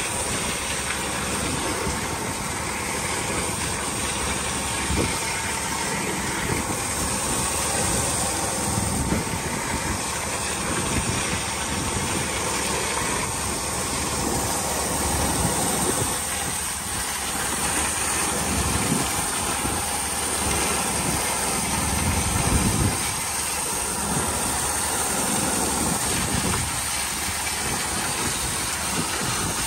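A boat's engine running steadily, heard from the open deck, with uneven wind noise on the microphone.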